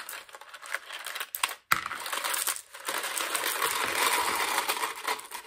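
A crumpled foil bag crinkling as small stones are tipped from it into a stretched sock, the stones clicking and rattling against each other. A sharp knock comes a little under two seconds in.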